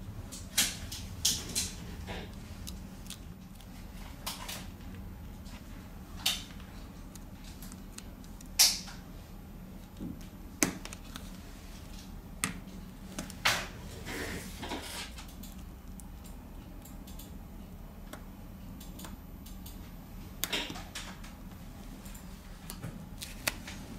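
Irregular light clicks and taps of small tools and phone parts being handled during smartphone reassembly, with a short scraping rustle a little past the middle, over a low steady hum.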